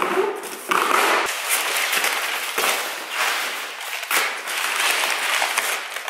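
Packing tape tearing off a cardboard shipping box, then crumpled kraft-paper packing crackling and rustling as it is pulled out by hand, with cardboard flaps scraping.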